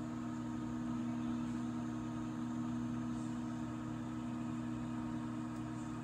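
Frigidaire countertop microwave oven running, a steady hum that does not change.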